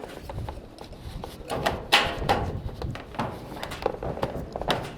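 Irregular knocks, clacks and scrapes of plumbing pipe fittings and tools being handled, the sharpest knock about two seconds in.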